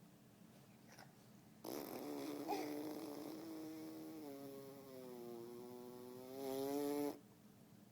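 One long, buzzing vocal noise lasting about five and a half seconds. Its pitch sinks slowly through the middle, and it grows louder just before it cuts off.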